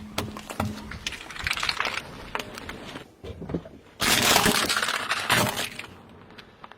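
Brittle objects cracking and breaking as a car tyre rolls over them: a run of sharp cracks and crackling, then a loud crunching burst about four seconds in that lasts a second and a half.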